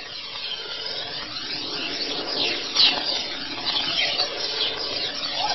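Steady rushing, whooshing noise that slowly grows louder, its tone sweeping and swirling throughout.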